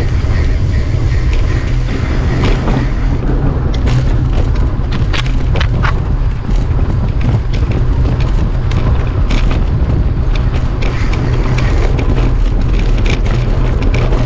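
Wind buffeting an action-camera microphone while a mountain bike rolls fast over a rough dirt track, with tyre noise and frequent quick rattles and knocks from the bike over bumps.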